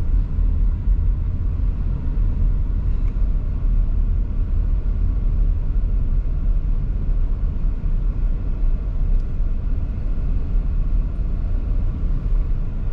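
Steady low rumble of a car driving on a paved road, heard from inside the cabin.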